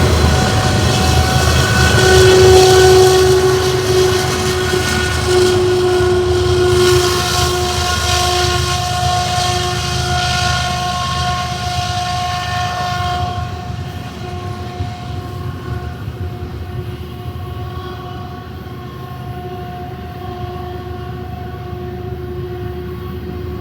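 Freight train locomotive's air horn sounding a long, steady chord over the low rumble of the passing train. It is loudest in the first half and grows fainter after about thirteen seconds.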